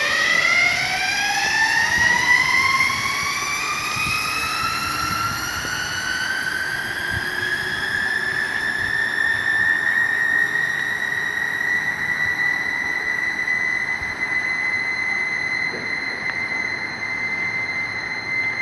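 Zipline trolley pulleys running along the steel cable: a whine that rises in pitch as the rider gathers speed, then holds at a steady pitch about halfway through.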